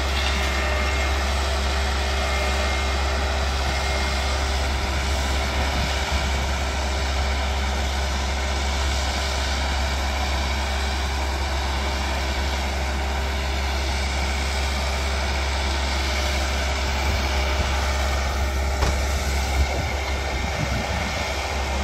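Engine of a utility tree-trimming machine running steadily, a low, even drone, with a few light knocks near the end.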